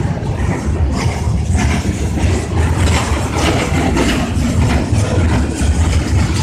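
Freight train rolling past, its cars giving a loud, steady low rumble on the rails.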